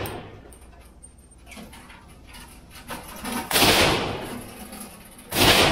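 Single gunshots echoing in an indoor range: two sharp bangs about two seconds apart, the first near the middle. Each rings out for most of a second, with faint clicks between.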